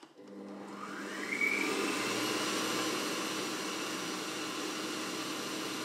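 Stand mixer's motor starting up, its whine rising in pitch over about a second and a half, then running steadily at speed while whisking cubed butter in the steel bowl.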